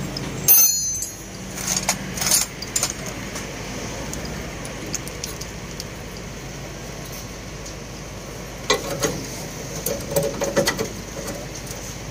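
Metal-on-metal clinks from hand work on a truck's leaf spring hardware: one sharp ringing clink about half a second in, the loudest sound, then scattered lighter clicks and taps, bunched together near the end, over a steady low background hum.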